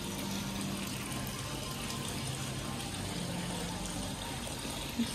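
Water from a glass-bowl fountain spilling steadily over its rim, an even splashing trickle.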